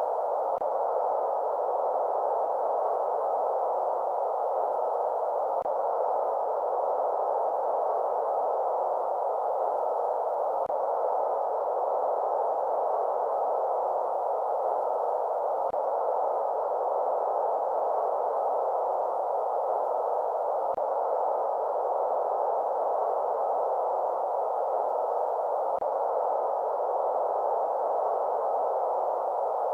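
Steady electronic white noise for lulling a baby to sleep, filtered so that the hiss sits in the middle range with little low rumble or high treble. A faint tick comes about every five seconds.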